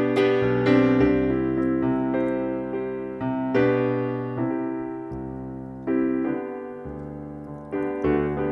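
Slow, quiet piano music: sustained chords struck every second or two, each left to ring and fade.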